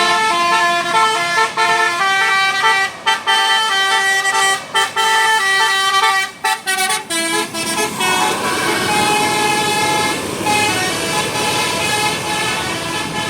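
A tour bus's Basuri telolet horn playing a tune, its notes stepping up and down in quick succession. About eight seconds in, the melody gives way to a rushing noise with a faint held note.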